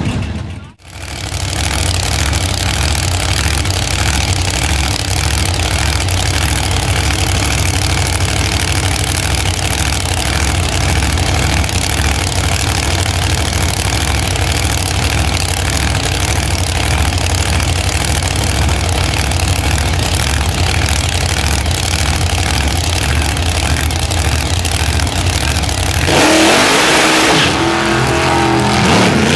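Two vintage drag-racing cars' engines idling loudly at the starting line with a steady low rumble. About three seconds before the end they rev hard and launch, the engine pitch climbing as they accelerate away.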